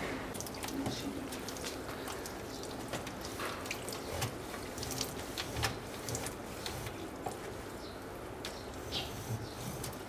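A cloth wiping and rubbing the plastic door liner and shelf rails of a refrigerator during cleaning, with irregular small clicks, taps and scrapes.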